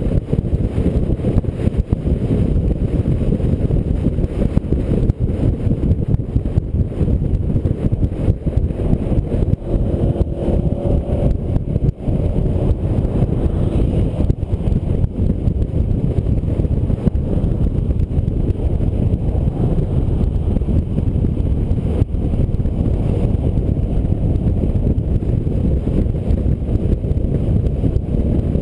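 Wind buffeting a roof-mounted GoPro on a car driving at highway speed: a loud, steady low rumble of wind and road noise.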